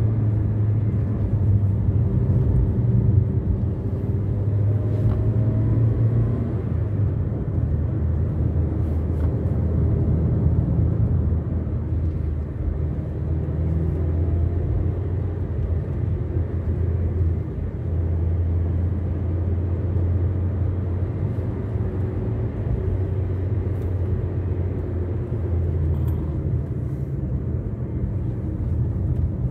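A car travelling along the road, heard as a steady low rumble of engine and tyres, with the engine note drifting up and down a little now and then.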